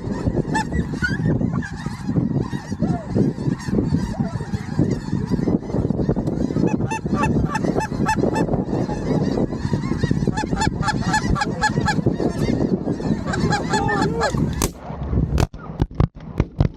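A flock of geese honking, many calls overlapping continuously. Near the end the calling thins out and a few sharp knocks are heard.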